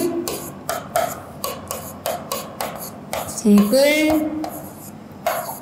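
Marker pen writing on a board: a string of short, scratchy rubbing strokes as letters and marks are drawn.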